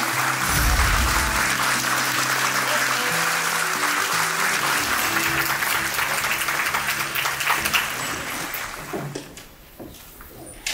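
Audience applauding over background music with held notes; the applause dies away about three-quarters of the way through, leaving only a few small knocks.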